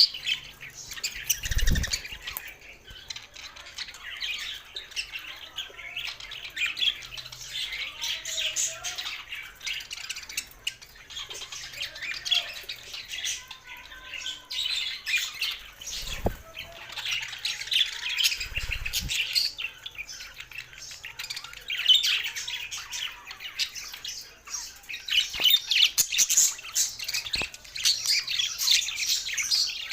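Several budgerigars chattering and warbling nonstop, a dense mix of sharp chirps and squawks. A few dull low thumps come about two seconds in and twice around the middle.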